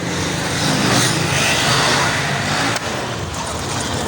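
Street traffic with a motor vehicle passing close; its noise swells about a second in and drops off suddenly near the end, over a steady low engine hum.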